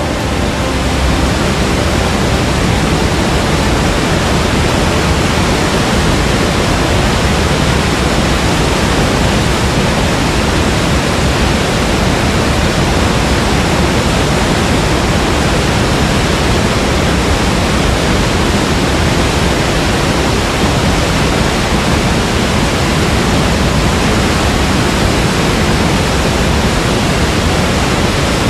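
Heavy flow of released dam water pouring over a waterfall: a loud, even rushing noise with no breaks.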